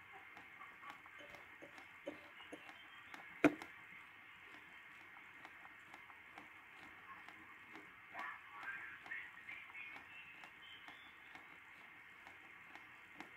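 Homebrew 40-metre SDR receiver in lower sideband being tuned up the band: a steady hiss of band noise held to the narrow voice passband, with brief garbled snatches of off-tune single-sideband signals. A sharp click comes about three and a half seconds in.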